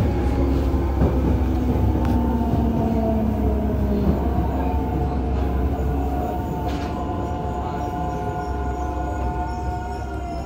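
Mitsubishi GTO-VVVF inverter and traction motors of a Yokohama Municipal Subway 3000A car, heard inside the car under way: a whine of several tones over the rail rumble, falling in pitch over the first few seconds and then shifting, while the running noise slowly grows quieter.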